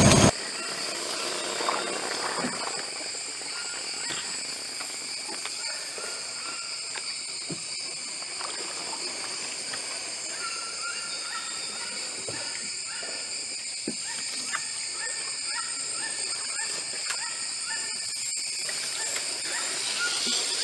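Rainforest ambience: a steady, high-pitched insect chorus drones in several bands throughout. From about halfway in, an animal gives a run of short, evenly repeated calls, and there are a few faint knocks and splashes.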